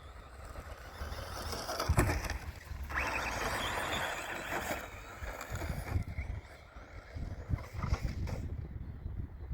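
RC rally car driving over rough ground, with its motor and tyres giving a noisy rush from about three to five seconds in. There is a sharp knock about two seconds in and several smaller knocks later.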